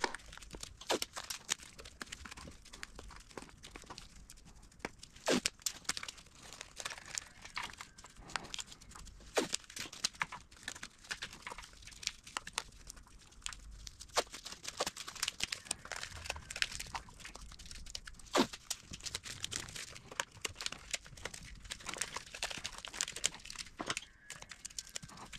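Painter's tape being pulled, torn and pressed down, with plastic and paper crinkling under gloved hands as the open intake ports of a motorcycle engine are covered. Irregular crackling and sharp ticks, with no steady rhythm.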